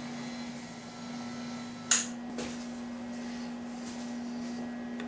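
A steady low hum with one sharp clack about two seconds in and a fainter tick just after, as hand tools and parts are handled on the milling machine table.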